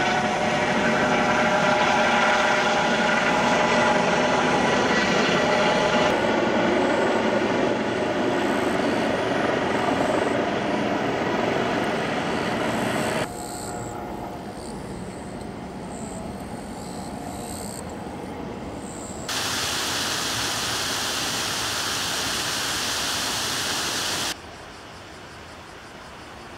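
Outdoor riverside ambience: a steady hiss of noise that changes abruptly in loudness and colour several times, jumping between takes.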